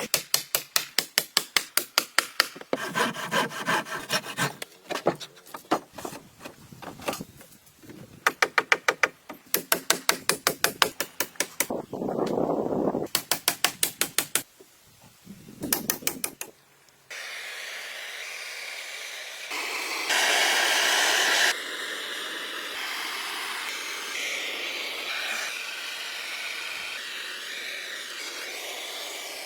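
Hand tools working wood. Bursts of rapid tapping and clicking come first, several strokes a second. From about halfway on there is steady rasping or sawing, which changes abruptly every second or two.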